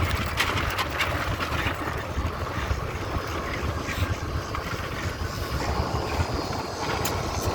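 Loud cicadas buzzing over the low rumble of a golf cart rolling on gravel.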